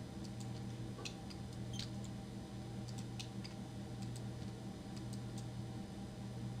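Scattered, irregular clicks of a computer mouse and keyboard keys over a steady low electrical hum.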